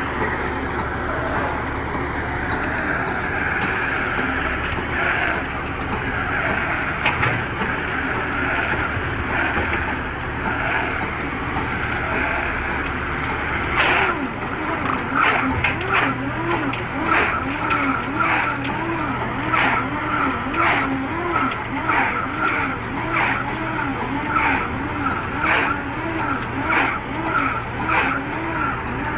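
Tractor-drawn round baler running steadily. About halfway through, a rhythmic squeak and click starts, repeating roughly once a second.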